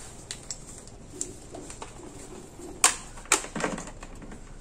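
Clicks and knocks of an analog multimeter and its test leads being handled and set down on an espresso machine's open housing. Two louder knocks come about three seconds in, among lighter ticks.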